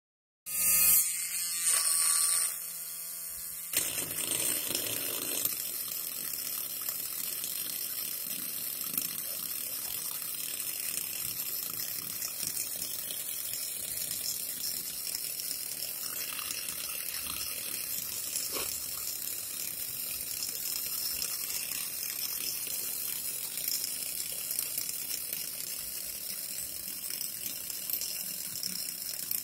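Small electric motor of a homemade toy borewell drilling rig running, a whine that is louder for the first three seconds or so and then settles into a steady whirring hiss.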